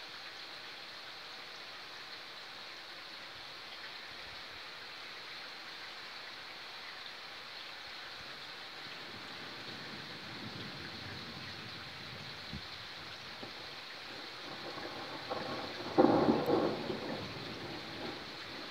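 Thunderstorm: steady rain hissing, with thunder rumbling in from about halfway and a loud clap near the end that rolls away over a couple of seconds.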